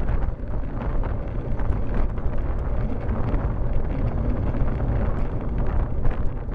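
Steady wind rumble on the microphone of a Cycliq Fly12 bike camera, riding at about 40 km/h, with a few faint ticks.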